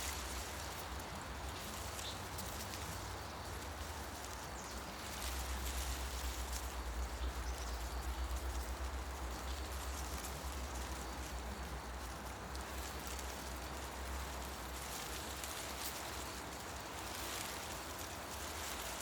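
Forest ambience: a steady hiss of leaves rustling in the wind, under a low rumble that swells for several seconds near the middle.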